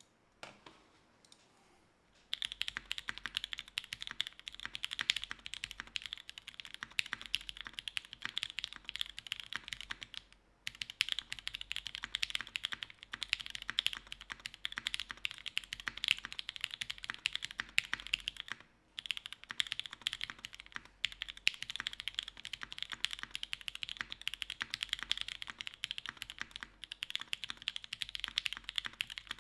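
Fast continuous typing on a TGR Jane V2 CE mechanical keyboard: top-mounted carbon-fibre plate, Pewter switches, GMK keycaps. Typing starts about two seconds in, with a light knock just before it and two brief pauses, about ten and nineteen seconds in.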